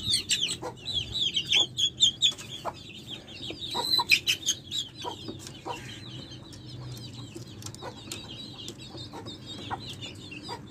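Domestic chicks peeping rapidly, many short high falling calls that come thickest in the first half and thin out after, with scattered knocks from the wooden wire-mesh cage door being handled.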